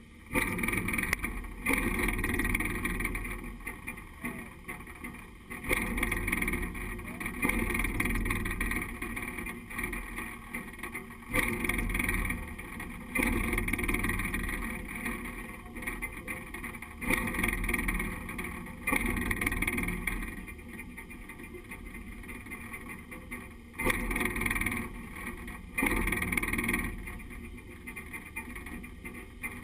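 Narrow-gauge steam locomotive standing still, heard from up at the front of the engine: bursts of sound start suddenly every two to six seconds and die away between them.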